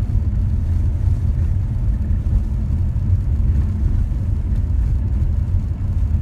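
Steady low rumble inside a moving car's cabin, from engine and tyre noise, as the car drives over a rough unpaved dirt road.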